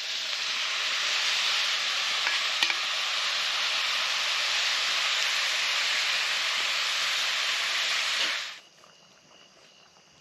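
Food frying in a pan over a wood fire, a loud steady sizzle with one click about two and a half seconds in; it cuts off abruptly about eight and a half seconds in.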